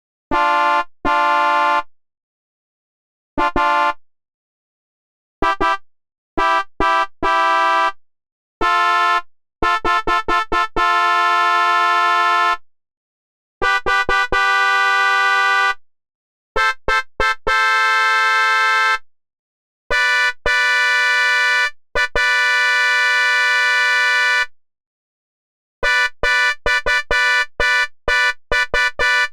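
A series of different car horns honking one after another: short single and double toots, groups of quick beeps and several long steady blasts, each horn at its own pitch, with a rapid string of short honks near the end.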